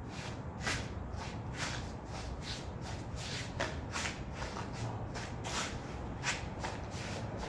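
Sneakers scuffing and shuffling on tiled pavement as a person dances, a run of short, hissy scrapes about two or three a second, uneven in strength.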